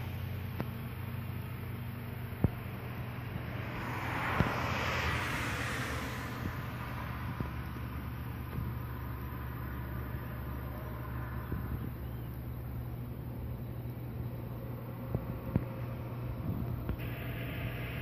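Outdoor ambience: a steady low hum with a rushing swell about four seconds in, and a few sharp clicks.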